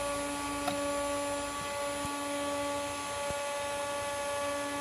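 Steady electrical hum from running computer equipment, several constant tones held unchanged throughout. A single short click under a second in, as of a terminal key being pressed.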